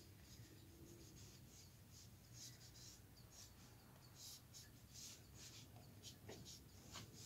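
Faint, irregular scratchy rubbing strokes on paper as a small white pad is worked over a freshly painted watercolour onion, lifting paint to leave a pale ghost of the shape.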